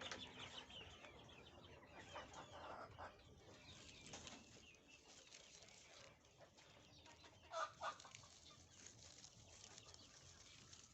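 Flock of Fayoumi chickens clucking faintly, with two louder short squawks close together about seven and a half seconds in.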